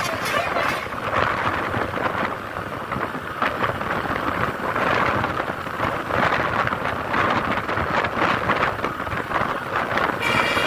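Rushing, rumbling noise of bus traffic with wind on the microphone, rising and falling in waves, with no horn tune sounding.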